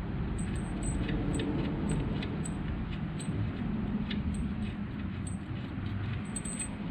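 Light metallic ticks, roughly two a second, as a motorcycle's oil drain plug with its crush washer is threaded back in by hand, over a steady low hum.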